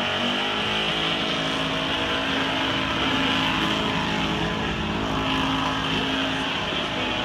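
Car engine held at high revs during a burnout, with a steady hiss of spinning tyres. The engine sound climbs slightly near the start, then holds.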